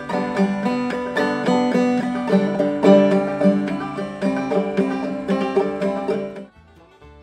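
Banjo being picked in a quick, steady run of plucked notes, stopping shortly before the end.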